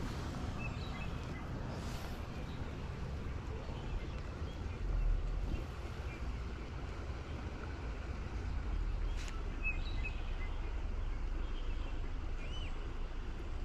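Steady low wind rumble on the microphone, with a few short bird chirps scattered through and a single light click about nine seconds in.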